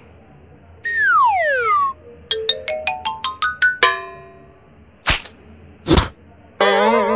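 A string of cartoon sound effects. First a falling whistle, then a quick run of about nine xylophone-like notes climbing in pitch, then two short noisy hits, and near the end a wobbling, warbling boing.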